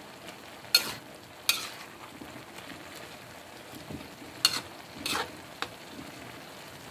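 Vegetables and shrimp simmering in broth in a frying pan, a steady soft sizzle, with a spatula knocking and scraping against the pan a few times as the mix is stirred.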